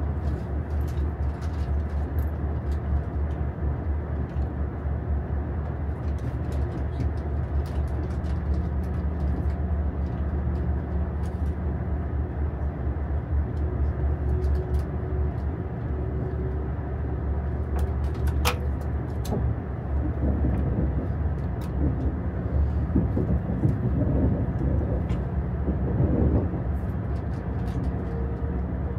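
Cabin noise inside a KTX high-speed train under way: a steady low rumble with scattered faint clicks and creaks, and one sharp click a little past the middle.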